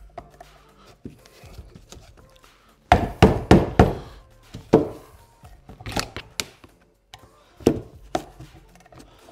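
Sharp knocks as the BMW electric water pump's housing is tapped hard to separate it from its seal: a quick run of knocks about three seconds in, then several single knocks spaced out after it.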